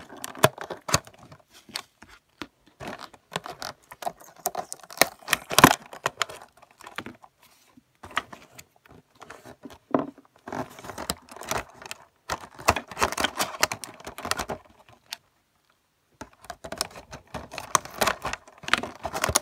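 A cardboard toy box with a clear plastic window being handled and opened: irregular crinkling, clicking and scraping of plastic and cardboard, with a short pause before the last few seconds.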